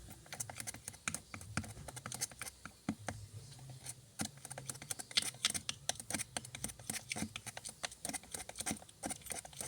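Glue being stirred for slime in a small container: rapid, irregular clicks and taps of the stirrer against the container.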